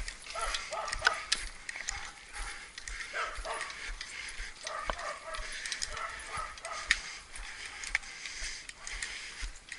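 Footsteps and rattling gear of a person walking with a helmet camera, with a dog barking in short yelps and a few sharp cracks, the loudest about a second in and near seven seconds.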